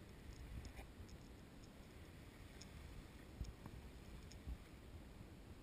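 Near silence: a faint low rumble with a few tiny clicks scattered through it.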